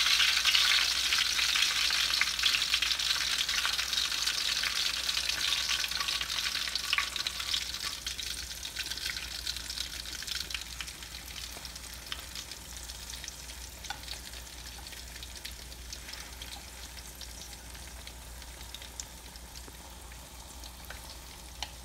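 Hot oil in a wok sizzling and crackling as banana rolls in spring-roll wrappers deep-fry, loudest at first and gradually dying down. A light tap near the end.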